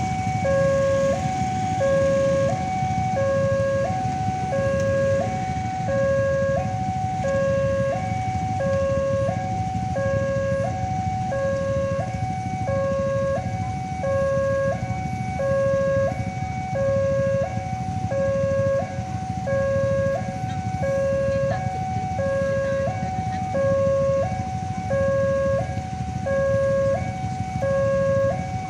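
Railway level-crossing warning siren sounding continuously, alternating between a higher and a lower tone in a steady hi-lo cycle about every second and a half. A steady low rumble runs underneath.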